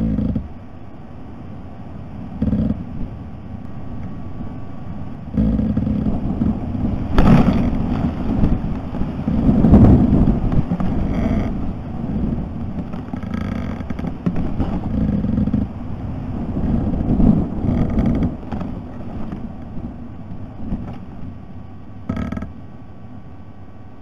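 Wind gusting over a tree-mounted nest-camera microphone: a rough rumble that swells and fades in surges, strongest around the middle, with a few short scrapes and knocks. It settles lower after about 22 seconds.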